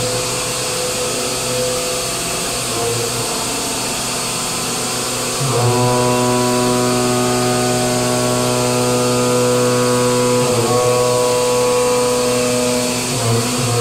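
A milling cutter on a FOOKE gantry milling machine cutting a metal plate: a steady machining whine in several even tones over a hiss of flying chips. The tone grows louder and fuller about five and a half seconds in, then drops back about five seconds later.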